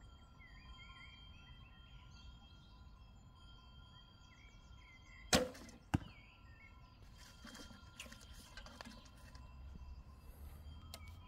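A longbow loosed: a sharp crack of the string on release, then a second, shorter crack about half a second later as the arrow strikes the target 30 metres off. Faint clicks and rustles follow as the next arrow is handled, with birds chirping quietly.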